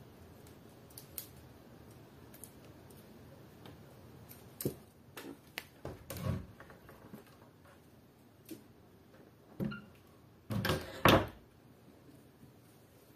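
Scattered clicks, knocks and rustling of things being handled in a small room as a wristwatch is taken off. The knocks come in a louder cluster about halfway through and again near the end.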